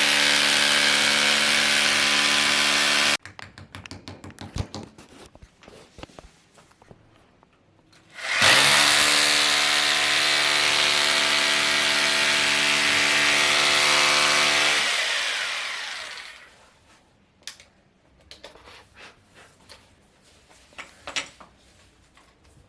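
Electric drill boring into a masonry wall in two runs: the first cuts off suddenly about three seconds in, and the second starts about eight seconds in and winds down around fifteen seconds. Light clicks and knocks come between and after the runs.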